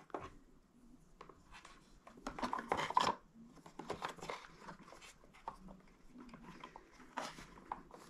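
Light handling noises as a rubber drive belt is worked onto the motor shaft of a Bissell Power Force Helix upright vacuum: scattered small clicks and rubbing, with a louder run of clicks and scraping about two to three seconds in.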